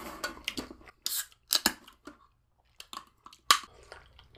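An aluminium soda can being picked up and drunk from: a few short, sharp clicks and brief hissy scrapes, the sharpest click about three and a half seconds in.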